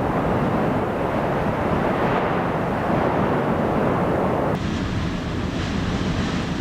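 Steady rushing roar of wind and the active lava lake at a volcano's crater rim. The sound changes abruptly a little past halfway.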